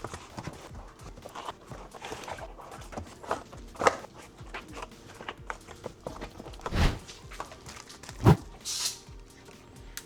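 Background music with scattered knocks and clunks from hands-on bicycle tire work, loudest near the middle and about eight seconds in, followed by a short hiss.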